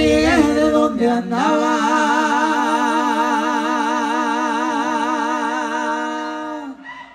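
A singer holding one long note with wide vibrato, after a couple of short notes, unaccompanied while the band drops out, amplified through the hall's PA; the note fades away near the end.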